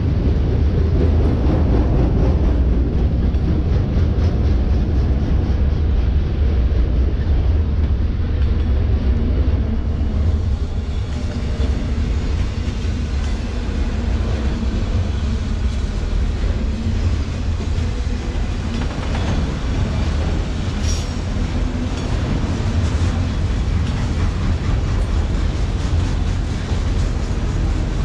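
Autorack freight cars rolling past: a steady low rumble of steel wheels on the rails, with scattered clicks.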